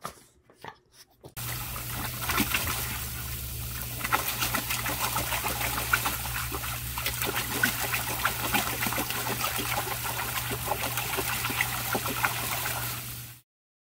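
Garden hose spray pouring into a plastic paddling pool while a Boston terrier splashes through the water and snaps at the jet: a dense, steady hiss full of splashes, with a steady low hum underneath. It starts suddenly about a second in and cuts off abruptly just before the end.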